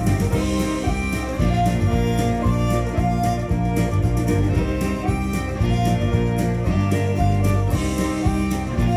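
Instrumental break of a country-folk rock song: fiddle and guitar playing the tune over bass and a steady drum beat, with no vocals.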